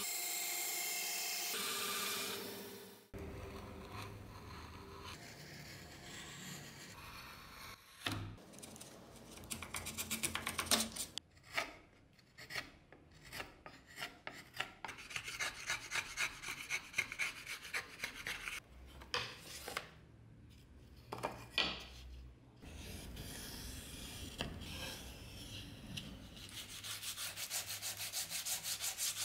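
Band saw running as it cuts a thin wooden board, stopping abruptly about three seconds in. Then a hand gouge scraping shavings out of a groove in a small wooden board in quick rasping strokes, followed near the end by steady back-and-forth rubbing on the wood.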